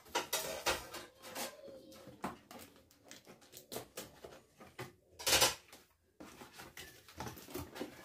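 Cardboard box being handled and slit open with a kitchen knife: scraping, rustling and tapping, with one louder rasp a little past the middle as the blade cuts through.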